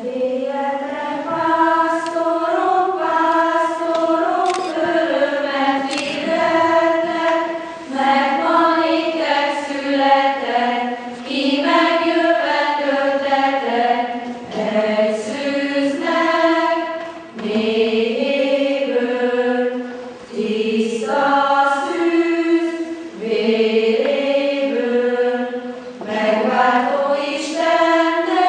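A group of voices singing a song together, phrase after phrase, with short breaks between phrases about every three seconds.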